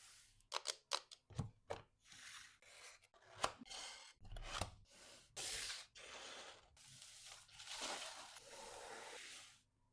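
Packaging being handled: a quick run of sharp clicks and snaps, then several longer rustling, tearing stretches of about a second each, which stop abruptly near the end.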